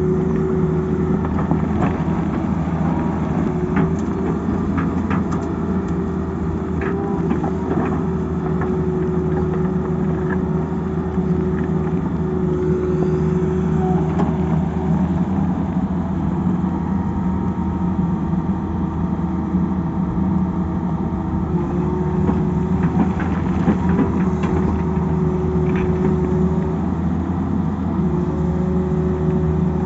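Tata Hitachi crawler excavator's diesel engine running steadily under load, its pitch shifting slightly now and then as the arm works. Scattered knocks and scrapes of the steel bucket on rock and stones.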